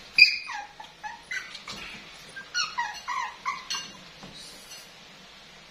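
Two-month-old Chihuahua puppy whining: a string of short, high-pitched cries that slide downward in pitch, stopping about four seconds in.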